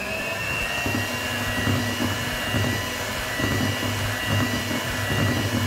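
Flama 300 W electric hand mixer running steadily, its beaters whisking flour into cake batter in a plastic bowl: a steady high motor whine over an uneven low churning rumble.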